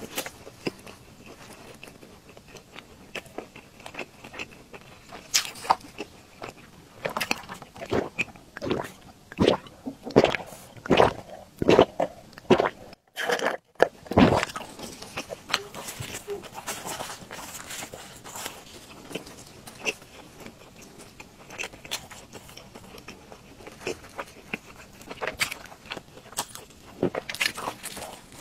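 Close-miked biting and chewing of a fried dough stick (youtiao): repeated short, crisp crunches and mouth sounds, busiest in the middle. There is a brief silent gap about halfway through.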